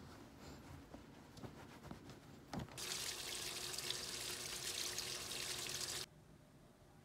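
A few faint clicks, then about three seconds in, water pours steadily from a top-loading washing machine's inlet into its drum as it fills for a wash. The pouring stops abruptly about three seconds later.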